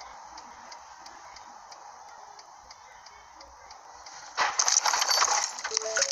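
Traffic noise heard from inside a stopped car with a faint, regular ticking. About four seconds in, a sudden loud car crash: an impact with clattering and clinking debris and glass that lasts about two seconds.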